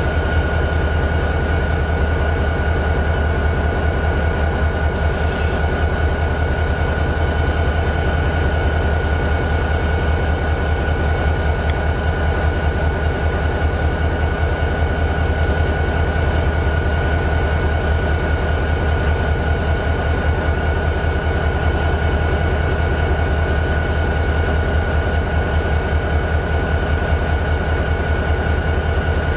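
CSX GP40-2's turbocharged 16-cylinder EMD 645 diesel idling steadily, a fast even exhaust beat with a steady high whine over it.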